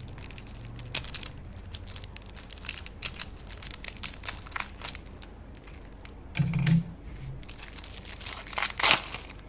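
A tarot deck's packaging being opened by hand: crinkling and tearing of its wrapping with irregular crackles and clicks, the loudest rip near the end.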